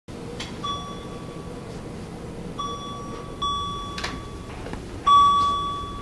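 An electronic call tone at a nursing station sounds four times, each a steady high beep of about a second or less, the last one loudest. A couple of light knocks come in between.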